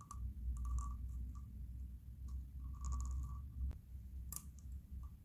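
Metal scissors clicking and crunching as they cut into the plastic tip of a syringe, in several short snips, the sharpest about four seconds in, over a low handling rumble.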